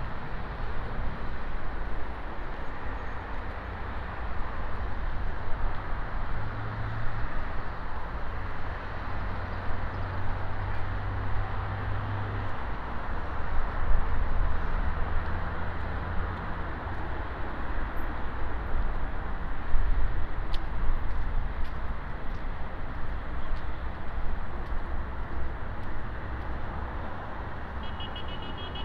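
Steady city street noise, mostly the hum of road traffic, with low engine rumbles from passing vehicles rising and falling.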